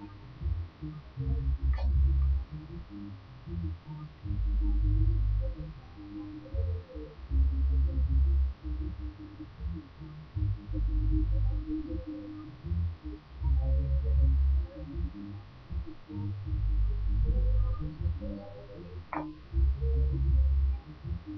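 Background music with a heavy bass line that swells and drops about every three seconds, boomy and muffled, under a steady low hum. Two soft clicks come through, one early and one near the end.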